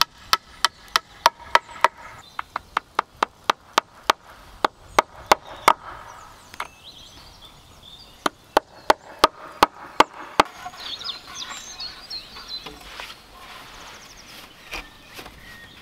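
A hammer driving nails into the pine boards of a concrete form frame: quick, ringing blows, several a second, in two long runs that stop about two-thirds of the way through. Softer scraping and shuffling of sand and boards follows.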